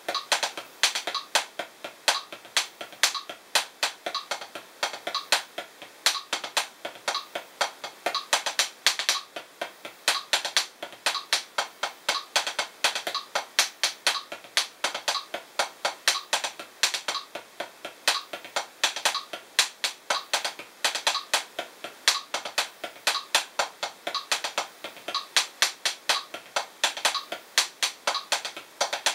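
Hickory 7A drumsticks playing the drag paradiddle #2 rudiment on a practice pad at 60 bpm: an unbroken, even stream of sharp taps with quick grace-note drags mixed in.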